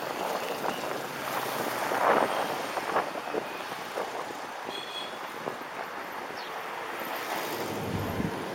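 Wind rushing over the microphone of an electric kick scooter in motion, mixed with traffic passing on the road alongside. A few sharp knocks stand out, the loudest about two seconds in and again about three seconds in.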